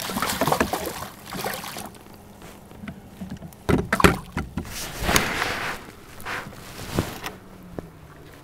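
Handling noise from unhooking a fish in a landing net inside a kayak: irregular knocks, rattles and rustles, loudest about four to five seconds in.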